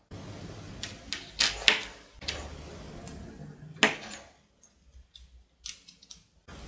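Handling noise: a small brass coin or washer clicking and tapping against the metal barrel of a soldering iron and the wooden tabletop. There are a handful of sharp clicks, the loudest about four seconds in.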